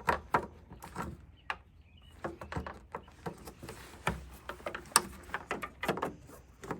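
Scattered light clicks and knocks of plastic parts being handled as bulb sockets are fitted back into a Ford Super Duty headlamp housing, with a sharper click about five seconds in.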